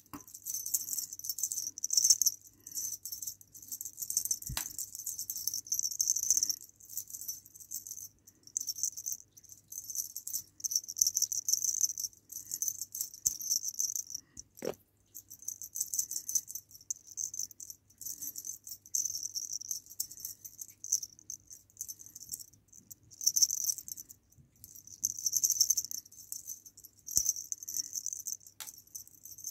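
A small rattle toy shaken in stop-start bursts, a bright high rattling that comes and goes every second or two, with a few single clicks between.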